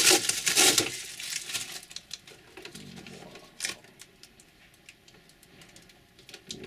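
Clear plastic bag crinkling loudly as it is pulled off a new RC crawler, for about the first second and a half. Then quieter scattered clicks and taps as the model is handled.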